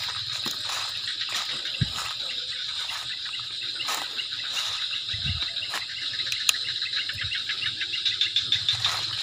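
Crickets and other insects chirring steadily in a dense, fast-pulsing chorus, with two brief dull low thuds about two and five seconds in.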